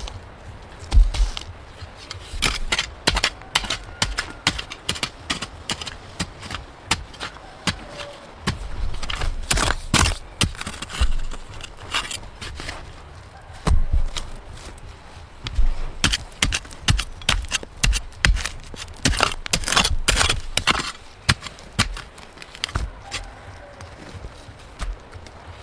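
A string of irregular knocks, clicks and scrapes, coming in uneven clusters.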